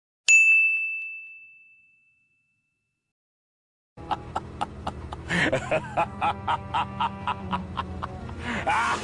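A single bright ding sound effect, one clear tone struck once and ringing away over about two seconds. After a silent gap, a rhythmic clip starts with regular clicks, about four a second, and a short sliding voice-like sound.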